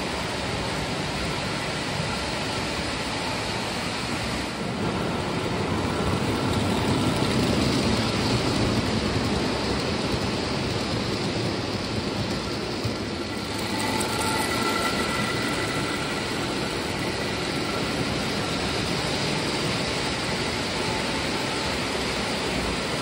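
Lionel O-gauge model passenger train rolling along three-rail tubular track: a steady rumble of the wheels on the rails, louder for a few seconds about five seconds in as the cars pass close.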